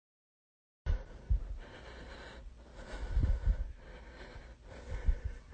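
A moment of dead silence, then quiet room tone from a phone microphone with a few soft, low thumps.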